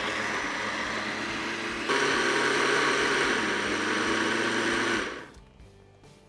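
Heated countertop blender's motor running, pureeing cooked cauliflower with broth and cream into soup: a steady whirring that steps up louder about two seconds in, then stops about five seconds in.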